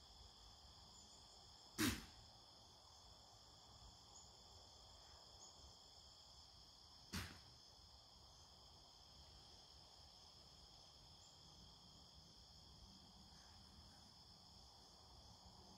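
A white-tailed deer snorting twice: two short, sharp blows about five seconds apart, the first louder. Behind them is a steady, high-pitched chorus of insects.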